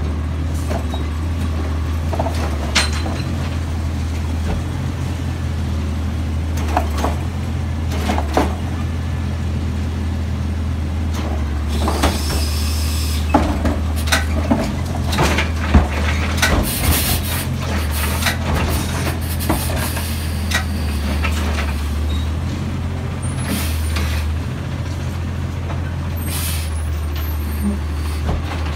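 Heil automated side-loader garbage truck working slowly: its engine running steadily, with repeated knocks and clanks from the lifting arm and carts, and several sharp air-brake hisses, the longest about twelve seconds in.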